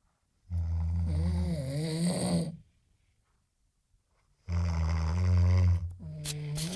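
A person snoring: two long, loud snores of about two seconds each with a quiet pause between them, and a third starting near the end.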